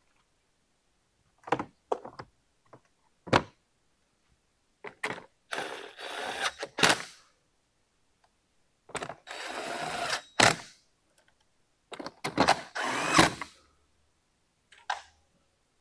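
A few knocks, then a cordless drill driving screws into the generator's plastic side panel in three separate runs of about a second each.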